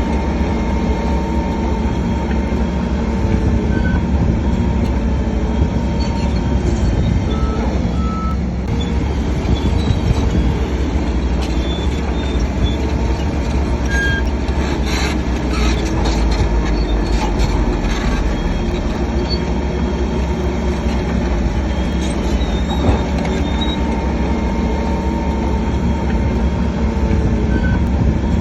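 Heavy earthmoving machinery at work: big diesel engines running steadily under load, with metallic clanking and brief high squeaks scattered through.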